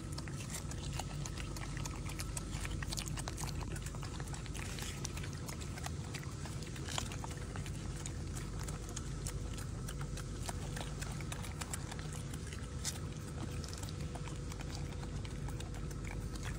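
Golden snub-nosed monkeys eating lettuce and fruit: many small, scattered crunching clicks of chewing and handling food over a steady low background hum.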